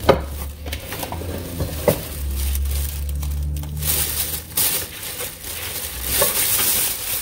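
Plastic bag crinkling and rustling as items are pulled out of it, with two sharp knocks in the first two seconds.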